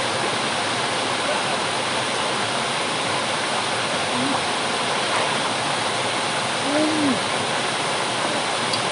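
Water pouring from pipe spouts into a pool, a steady rushing splash that does not change.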